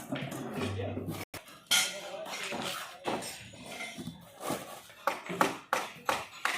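Clinks and knocks of hard objects, likely metal tools being handled, turning into a quick run of sharp taps in the last second and a half.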